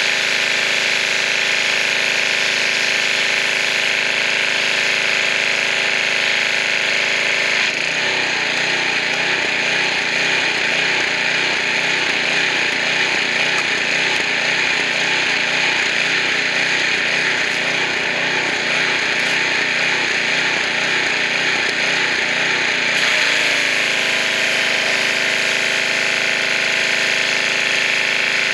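Pressure washer running steadily, washing grime off a camper's rear. For about fifteen seconds in the middle the sound turns rougher and fluttering, then settles back to an even running note.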